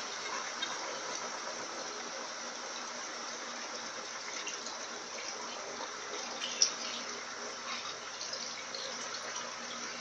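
Electrolux Turbo Economia LTD15 top-load washing machine on its spin cycle: a steady rushing noise of the basket spinning and water being spun out of the clothes and draining. One sharp click about six and a half seconds in.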